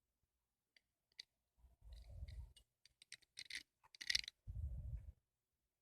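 A Zippo lighter being handled: a run of small metal clicks and scrapes, the loudest about four seconds in, with a few dull handling bumps.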